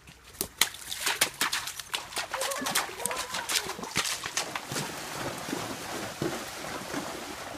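Horses' hooves splashing and clattering through shallow creek water, a dense run of irregular splashes that starts about half a second in.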